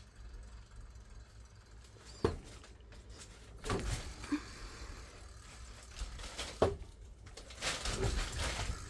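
Handling noises: a sharp click about two seconds in and another about four seconds later, with two short bouts of rustling and scraping between and after them.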